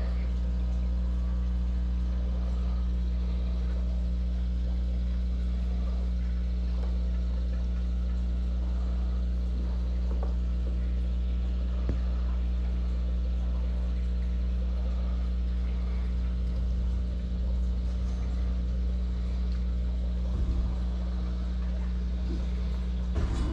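Steady low hum of aquarium equipment (pump and filter) picked up by a camera under water, with a few faint clicks.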